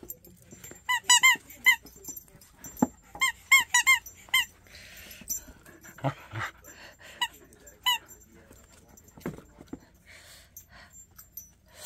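Rubber squeaky dog toy squeaking in quick runs of short, sharp squeaks: about four a second in, about five around three to four seconds in, and one more near eight seconds. Softer thumps and rustles of dogs moving come between.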